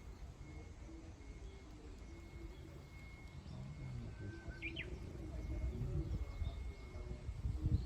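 Outdoor birdsong: a dove cooing in a run of low notes, a brief high chirp from another bird about halfway through, and a thin steady high note for most of the time. A low rumble runs underneath, with a thump near the end.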